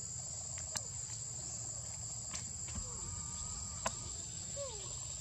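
Steady, high-pitched insect drone, the shrill chorus of crickets or cicadas. Three sharp clicks and a few faint, short calls that fall in pitch sound over it.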